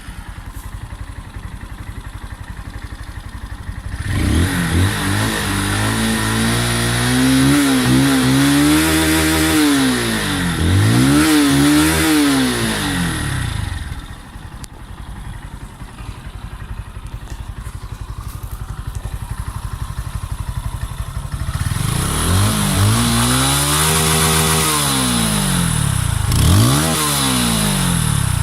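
Small-displacement single-cylinder motorcycle engine through its exhaust: idling, then blipped up and down several times for about ten seconds, idling again, and revved in another run of blips near the end.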